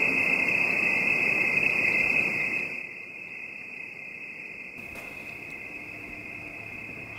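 A chorus of crickets trilling steadily in a high, unbroken band. For the first three seconds a louder rushing noise lies under it, then drops away.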